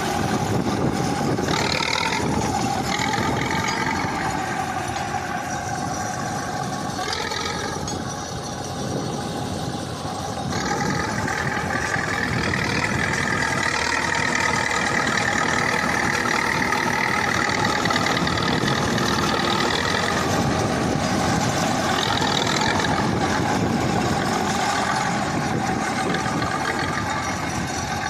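KhTZ T-74 crawler bulldozer's diesel engine running at work. It eases off about eight seconds in, then picks up again about two seconds later, with a higher steady whine joining it for some ten seconds.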